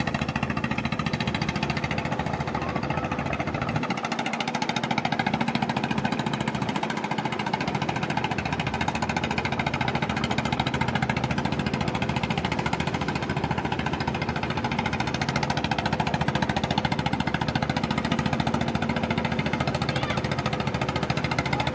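Fishing boat's engine running steadily, with a rapid, even chugging.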